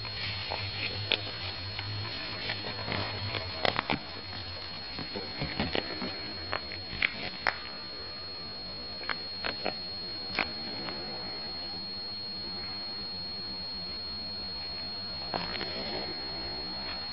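Handling noise: scattered clicks and rustles, mostly in the first ten seconds, over a steady electrical hum with a constant high whine.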